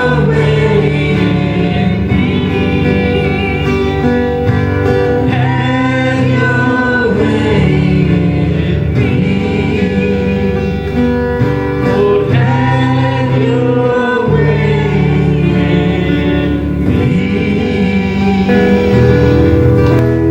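Worship music: voices singing a slow gospel-style song over a band with guitar.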